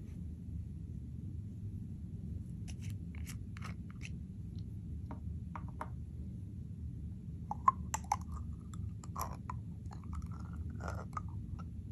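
Clear slime being mixed by hand: scattered sticky clicks and crackles, busier in the second half, with a few brief squeaks.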